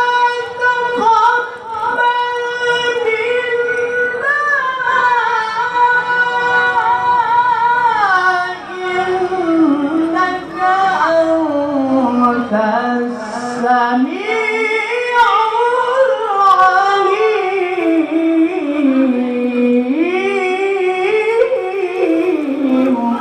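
A male qari reciting the Quran in a high voice. He holds one long high note for about seven seconds, then descends in ornamented melismatic runs to a much lower pitch near the end.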